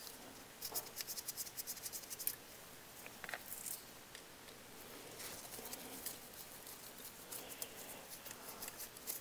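Faint quick clicking and scraping of a Phillips screwdriver working small screws out of the damper stepper-motor bracket, with light handling of the metal parts. The clicks are densest in the first couple of seconds, then sparser.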